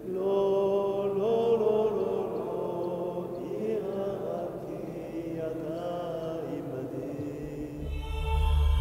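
A single voice chanting a slow religious chant, with long held notes that bend and waver. About eight seconds in, a low ambient music drone swells in beneath it.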